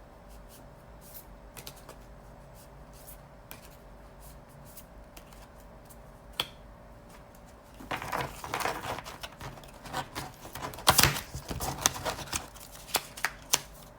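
A stack of balance-game question cards being shuffled by hand: a few faint ticks at first, then about eight seconds in a busy run of papery rustling and sharp clicks lasting several seconds.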